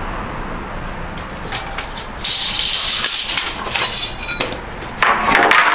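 Hand tools and wooden trim boards being handled on a concrete floor: a hissing scrape for about two seconds in the middle, then a louder clatter near the end.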